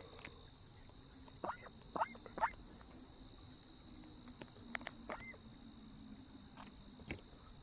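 Pet duck giving a few short soft calls, three in quick succession and one more a few seconds later, over a steady high chirring of crickets.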